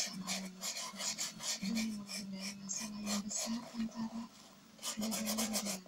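Quick back-and-forth strokes of a small stiff-bristled shoe brush on black leather, about five strokes a second, with a short pause about four seconds in. The brush is buffing freshly applied polish into a shine.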